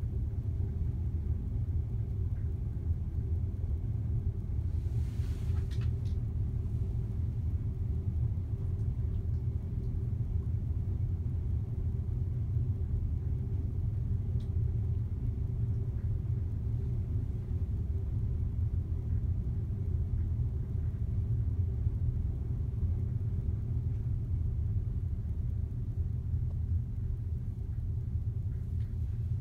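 Steady low rumble of a cruise ship's engines as the ship moves slowly in harbour, heard from inside behind glass. A brief faint hiss about five seconds in.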